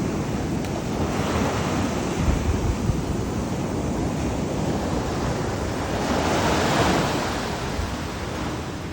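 Ocean surf washing on the beach, swelling a couple of times, with wind buffeting the microphone.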